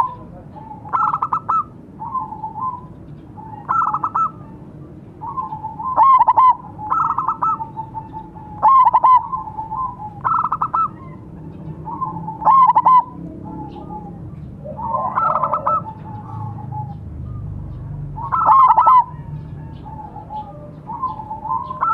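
Zebra doves (perkutut) cooing. A near bird gives loud phrases of rapid, stuttering coo notes every second or two, and fainter phrases from a second dove answer in between.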